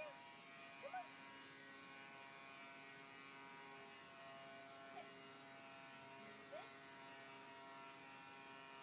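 Faint, steady machine-like hum made of many even tones, with a few short rising chirps about a second in and again around five and six and a half seconds.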